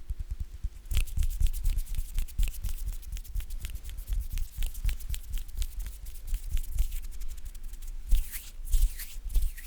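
Sticky ASMR sounds: something tacky being pressed and peeled apart, making a dense run of small crackling clicks that starts about a second in, with a few louder peels near the end.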